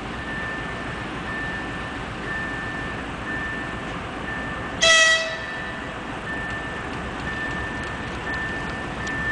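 Two-section 2TE116 diesel locomotive passing with a freight train, its engines a steady rumble. About five seconds in it gives one short, loud horn blast of about half a second. A high beep repeats about once a second throughout, from a level crossing's warning signal.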